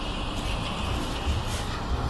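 City bus running close by, a steady low rumble mixed with road traffic noise.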